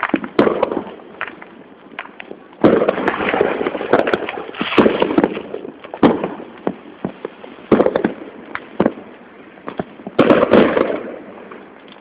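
Fireworks and firecrackers going off all around in a string of sharp bangs and crackling. The densest volleys come about three seconds in and again near ten seconds.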